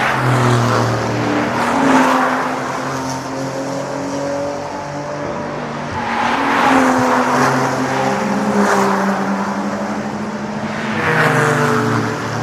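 GT race cars passing at speed one after another. The engine notes swell and fade with each pass, about three loud passes, the last falling in pitch as the car goes by.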